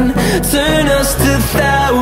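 Background pop music.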